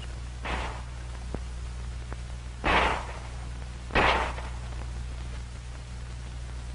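Three separate pistol shots, about half a second in, near three seconds and at four seconds, over the steady hum and hiss of an old film soundtrack.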